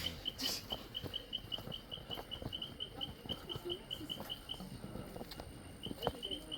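Rainforest ambience: a rapid, even train of short high-pitched calls, about five or six a second, which pauses for about a second near the end, over scattered light footsteps and rustling on the trail.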